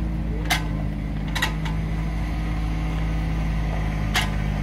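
Steady mechanical engine drone with a few sharp metallic clanks: one about half a second in, two close together near a second and a half, and one about four seconds in.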